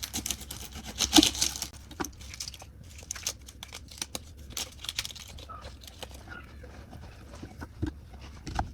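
Knife cutting through a red onion on a cutting board: irregular crunching cuts and knocks of the blade, the loudest about a second in.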